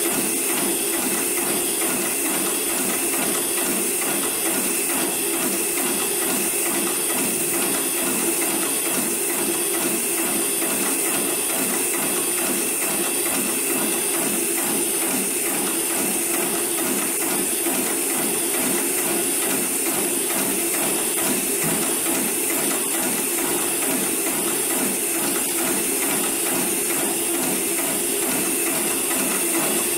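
Hightex 733 computer-controlled heavy-duty bar tacking machine sewing through a thick rope: a fast, even rattle of needle strokes running without a break, over a steady high hiss.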